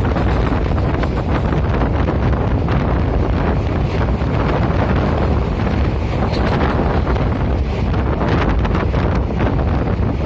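Steady, loud rumble of a moving train, with wind buffeting the microphone throughout.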